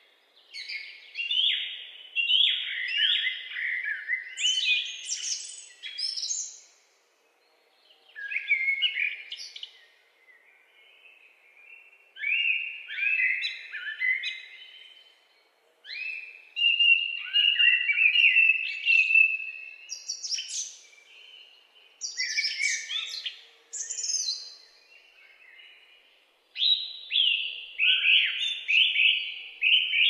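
Songbirds singing: phrases of quick, high notes, many sliding down in pitch, each phrase lasting a few seconds with short pauses between them, and one steadier trilled stretch in the middle.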